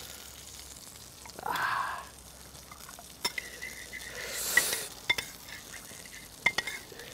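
A metal spoon stirring and scraping a runny paprika marinade in a ceramic dish, with a few sharp clinks of spoon against the dish and two louder scraping swishes. A faint steady sizzle of pork tenderloin in a frying pan runs underneath.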